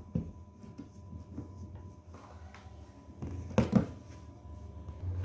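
Washing machine parts being handled: a light knock near the start and a louder double clunk about three and a half seconds in, over a low steady hum.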